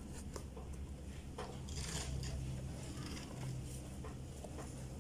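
Foam applicator rubbing liquid shoe polish over a leather loafer: short, scratchy rubbing and rustling strokes, the strongest about two seconds in, over a steady low hum.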